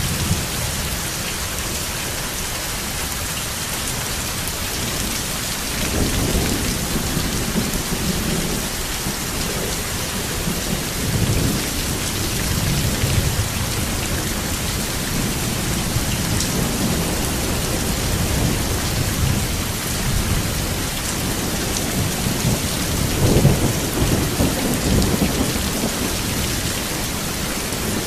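Steady heavy rain hissing on surfaces, with rolls of thunder rumbling low from about six seconds in to thirteen, and again more strongly near the end.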